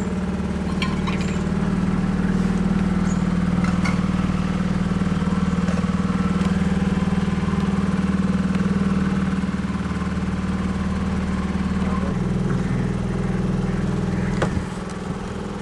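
A motorboat's engine running at a steady cruising pace: a constant low hum. Near the end there is a short knock, and the hum drops a little in level.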